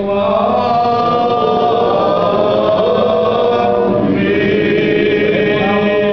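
A group of voices singing together in Orthodox church chant, in long held notes, the congregation's sung response to the priest's closing doxology.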